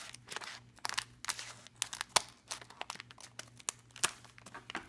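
Scissors snipping through a thin clear plastic packaging bag, a run of sharp cuts about two a second, with the plastic crinkling between them.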